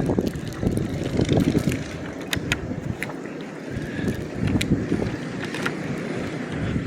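Strong wind buffeting the microphone in a snowstorm: a gusting low rumble, with a few sharp ticks in the middle.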